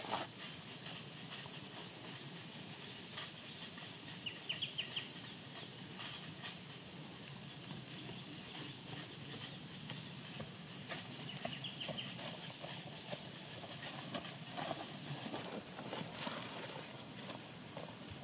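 Footsteps on a forest trail, with feet brushing through undergrowth and irregular soft thuds, over a steady high-pitched buzz that stops about three seconds before the end. Short faint chirps come twice.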